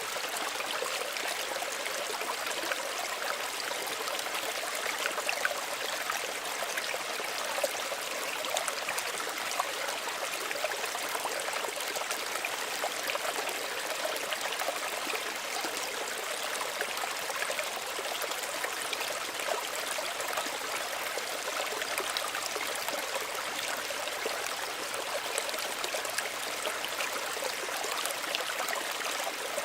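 Small stream running over stones: a steady gentle babble with fine trickling and splashing detail.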